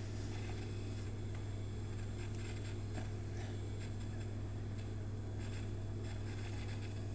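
A steady low hum with a few faint scattered ticks.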